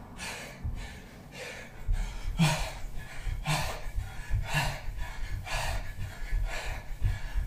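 Heavy breathing during exercise, with a hard exhale about once a second, over soft, quick thuds of feet jogging on the spot on a carpeted floor.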